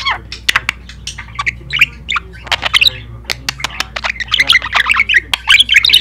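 Budgerigar chattering: a fast run of short chirps, clicks and warbling notes, busiest in the last two seconds.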